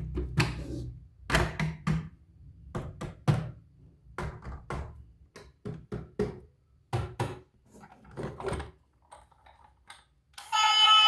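A series of irregular, sharp knocks and taps, a dozen or so over several seconds. Music starts about ten seconds in.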